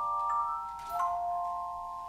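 Handbell choir ringing chords: several bells sound together in long, steady ringing tones, with fresh bells struck about a third of a second in and again at about one second.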